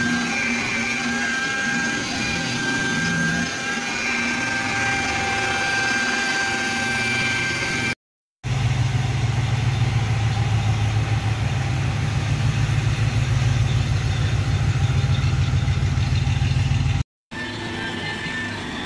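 Electric rotary polisher running steadily with a fixed whine as its pad buffs car paint. After a cut, a louder low, evenly pulsing rumble like a car engine idling runs for about nine seconds. After another cut the polisher runs again near the end.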